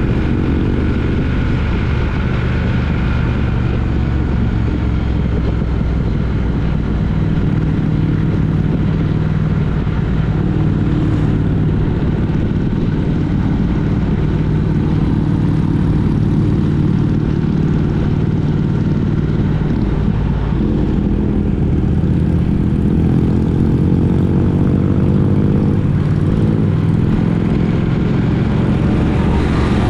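Triumph Speed Twin 900 parallel-twin engine running steadily under way, mixed with road and wind noise; the engine pitch climbs for a few seconds about three-quarters of the way through.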